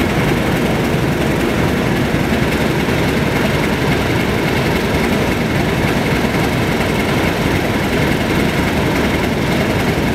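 British Rail Class 31 diesel locomotive standing and idling, its English Electric V12 diesel engine running steadily, with a thin high whine above the engine noise.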